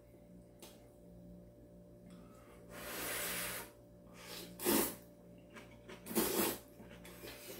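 A person blowing on hot instant ramen noodles for about a second, then slurping them up in two short slurps.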